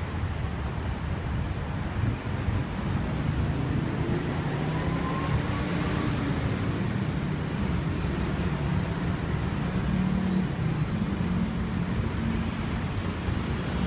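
Street traffic: motor vehicles running and passing, with a low engine hum that swells about four seconds in and eases off near the end.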